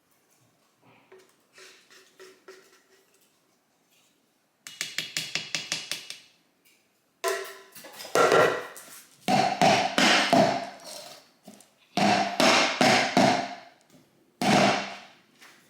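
Rapid metallic knocking and scraping of a utensil against a metal cake pan as batter is worked into it. A quick run of light taps comes first, then several louder stretches of knocking and scraping, about a second or two each, with a faint ring from the pan.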